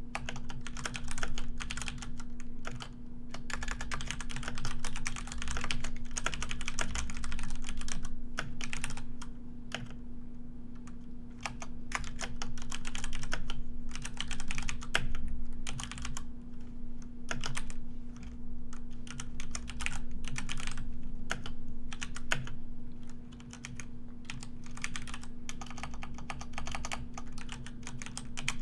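Typing on a computer keyboard: rapid runs of keystrokes broken by short pauses, over a steady low hum.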